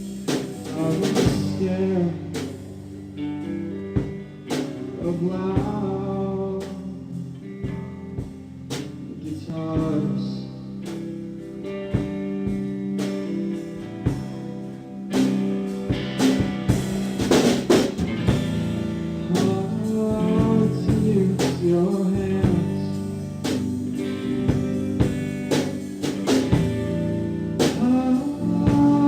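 Live rock band playing, with guitars and a drum kit keeping a steady beat and a voice singing over them at times.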